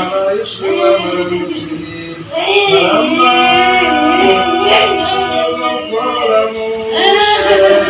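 A man's voice chanting Quranic verses in Arabic, in long drawn-out melodic phrases with short breaks between them.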